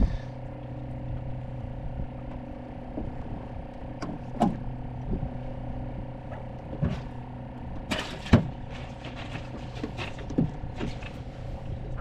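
Steady low mechanical hum with a few overtones, with scattered light knocks and clicks, the strongest two close together about eight seconds in.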